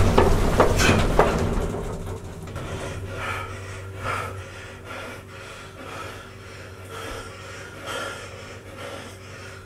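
A loud rumbling with several sharp knocks from a lurching elevator car, fading away about two seconds in. Then people panting and gasping, about a breath a second, over a steady low hum.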